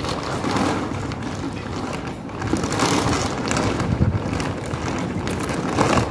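Dry dog food rattling out of a plastic bag onto a concrete floor, with the bag rustling as it is tipped.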